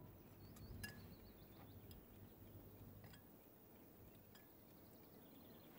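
Near silence: quiet room tone with a low hum and a few faint, short clicks.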